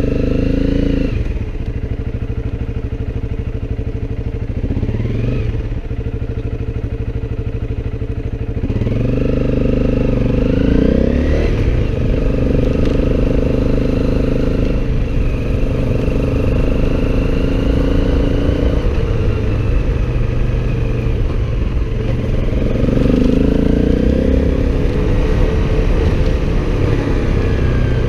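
Motorcycle engine running under way, rising in pitch several times as it speeds up and then holding steady between.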